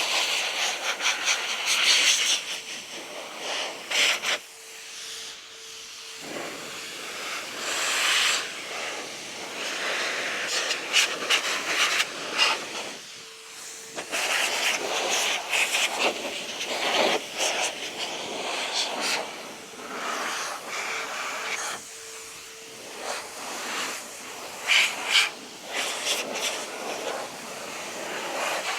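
Air blower blow-drying a washed motorcycle: a hissing rush of air that swells and fades as the nozzle moves, with a few brief lulls in the blast.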